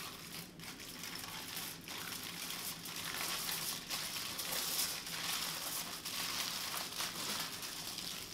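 Aluminium foil crinkling continuously as hands roll it tightly around a stuffed guinea fowl breast.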